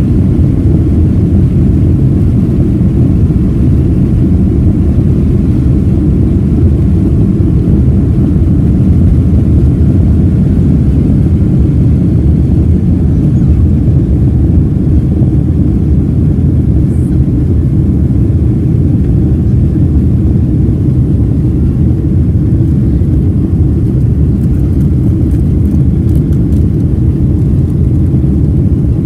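Steady low rumble of a Boeing 767's twin jet engines and rushing air, heard inside the cabin as the airliner climbs after takeoff.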